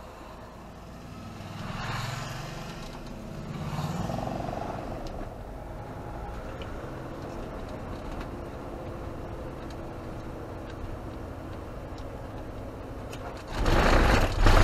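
Camper van cabin road noise on a narrow mountain road, swelling twice in the first few seconds as oncoming motorcycles pass. Near the end the van's wheels run over a cattle grid: a loud rattling rumble in two close bursts, much louder than the road noise.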